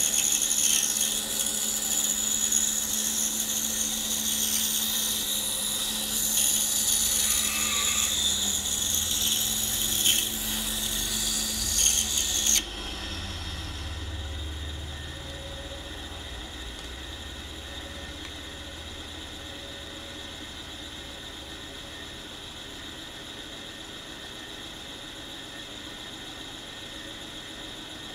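A Pegas saw's fine blade cuts a small block of buckeye, making a steady high hiss over the motor's hum for about twelve seconds. The cut stops abruptly, and the saw keeps running quietly without cutting.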